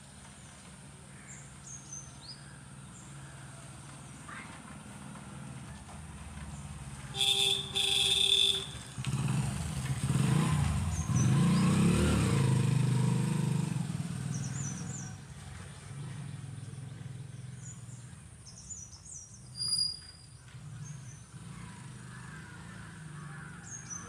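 A vehicle horn beeps twice, then a motor vehicle passes close by, its sound swelling and fading over about five seconds. Birds chirp in the background.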